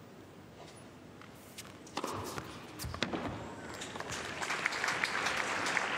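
Tennis ball struck on a serve with a sharp pop about two seconds in, followed by a couple more quick ball impacts, then arena crowd applause that builds over the last two seconds as the point is won.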